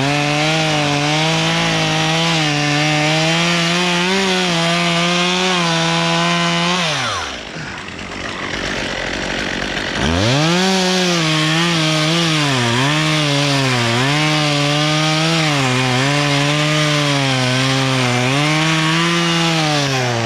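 Two-stroke chainsaw held at full throttle, then falling back toward idle about seven seconds in. It is revved up again about ten seconds in, and its pitch dips again and again as the chain bogs down cutting into wood.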